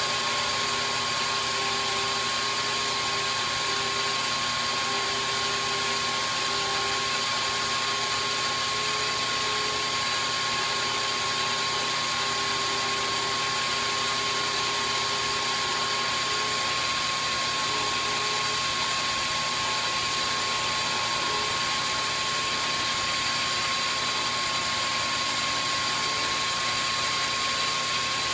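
South Bend 10 engine lathe running steadily under power, a constant mechanical whine with an even hiss and no change in speed.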